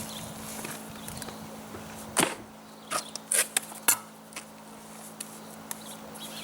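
A few sharp knocks and scrapes from laying concrete blocks in mortar, clustered between about two and four seconds in, over a low steady hum.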